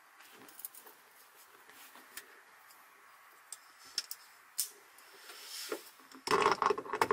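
Scattered light clicks and taps of small hardware and tools being handled, then a louder, busier stretch of sound starting about six seconds in.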